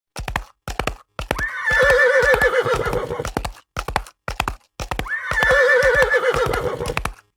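Horse whinnying twice, each a long call of about two seconds with a quavering pitch, over the clip-clop of hooves.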